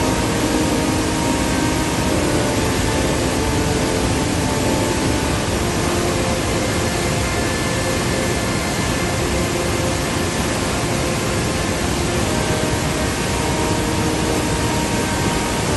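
Loud, steady roar of torrential whitewater: dam spillway discharge churning through the channel in large standing waves.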